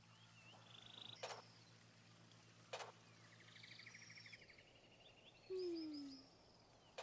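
Faint birdsong: chirps and rapid trills. Two sharp clicks come about a second apart in the first half, and a short falling tone is the loudest sound, past the middle. A low steady hum runs under it and stops about two-thirds of the way in.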